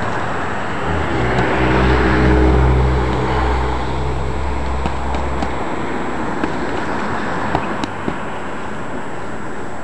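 A passing vehicle's low rumble builds and fades over about five seconds. Several short, sharp smacks of boxing gloves landing come between about five and eight seconds in.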